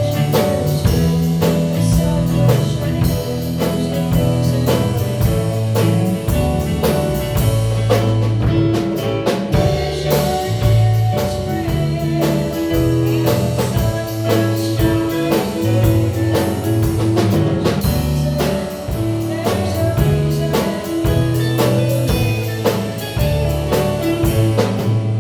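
Instrumental music at the close of a gospel song: a drum kit keeping a steady beat under held bass notes and chords, with no words sung.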